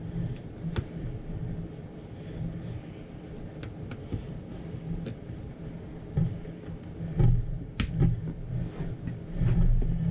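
Plastic parts of a cordless rotary tool and its accessories being handled and clipped together: scattered sharp clicks and knocks over a low, uneven rumble of handling, with the loudest click about eight seconds in.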